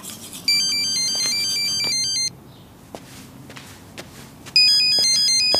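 Phone ringtone: an electronic melody of quick, stepping beeps that plays for about two seconds, pauses for about two seconds, then starts again. An incoming call is ringing.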